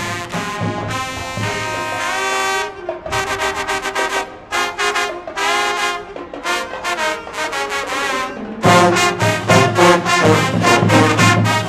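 HBCU pep band playing, led by trombones and trumpets: a held brass chord, then short punchy phrases. About nine seconds in the full band comes in louder, with a strong bass end.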